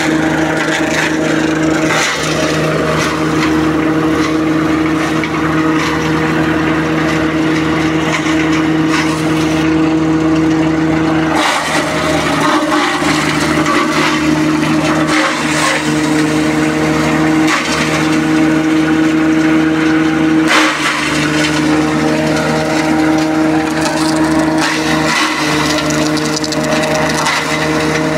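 Tractor-driven EMKAY shredder running steadily while cassava stems are fed in and ground up, a constant mechanical drone with occasional cracks as stems are chopped. Its pitch sits a little lower through the middle stretch under the load of the stems.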